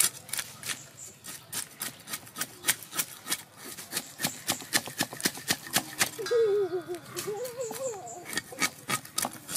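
Cleaver blade scraping the scales off a whole red tilapia on a wooden chopping board: short rasping strokes, about three or four a second. A wavering, voice-like pitched sound runs faintly behind it for about two seconds past the middle.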